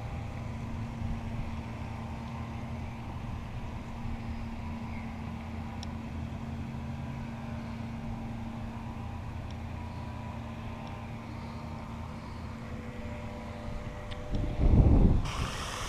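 Steady low hum of a distant motor running with a constant tone. A loud low rumble comes near the end, and the background changes suddenly just after it.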